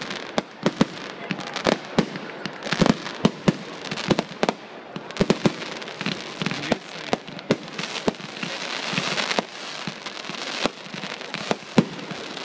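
Aerial fireworks going off in a rapid, irregular series of sharp bangs as shells launch and burst, with a crackling hiss underneath that swells for a couple of seconds before the end.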